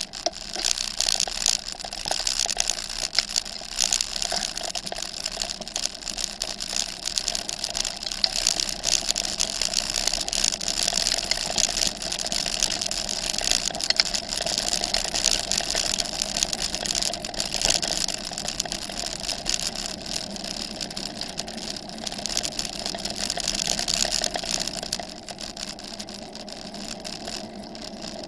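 Bicycle rolling fast over a gravel track: steady tyre noise with dense crunching and rattling picked up through the handlebar mount. It grows quieter a few seconds before the end as the surface turns to smooth wet tarmac.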